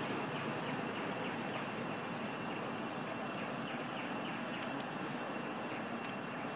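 Steady outdoor background noise: an even hiss with a faint, constant high-pitched whine over it and a few faint ticks.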